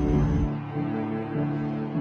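Background music: slow, sustained low chords with an ominous tone; a deep low rumble under it cuts off about half a second in.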